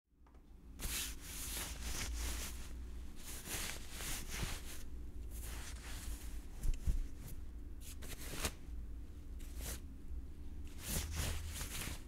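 Clothing rustling: irregular swishes and brushes of fabric moving, one after another, over a low rumble.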